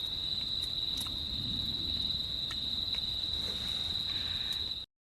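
An insect trilling in one steady, high, unbroken tone, with a few faint clicks; it cuts off abruptly near the end.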